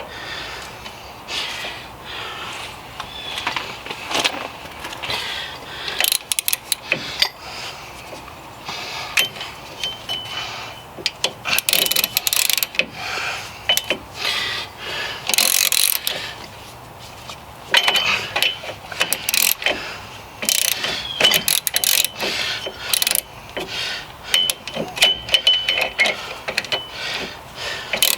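Socket ratchet wrench clicking in repeated bursts of back-and-forth strokes as a snug rear hub assembly bolt is worked loose.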